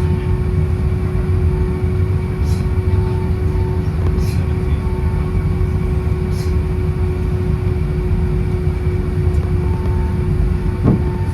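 Airbus A320 cabin noise heard from a passenger seat: a steady, loud rumble of the jet engines and airframe with a constant low hum.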